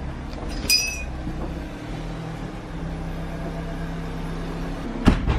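Doorbell sounding one short, high electronic tone about a second in. Then a steady low hum, and a sharp click near the end.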